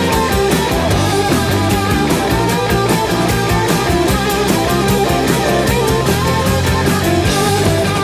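Loud rock music soundtrack with a fast, steady drum beat.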